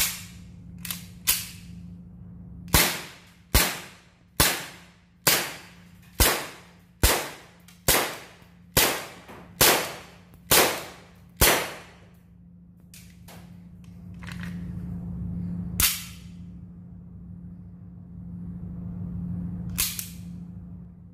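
KJW M9A1 gas blowback airsoft pistol firing about sixteen sharp shots, each with a short room echo: a few irregular shots at first, then a steady string of roughly one shot a second, then two single shots spaced several seconds apart.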